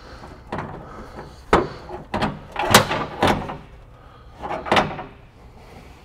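A handful of separate knocks and clunks of a Foxbody Mustang hood being shifted against its hinges while a hood bolt is being fitted. The loudest comes a little under three seconds in.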